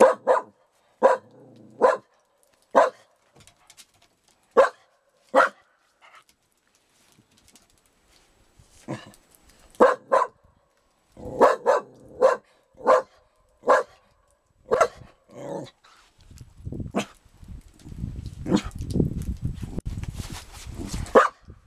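Dog barking, single barks about a second apart in two runs with a pause of a few seconds between them. A low rumbling noise sits under the last few barks.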